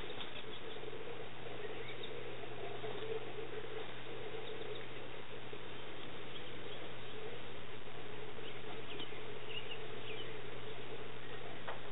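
Faint, short high-pitched bird chirps scattered over a steady background hum and hiss, with a single click near the end.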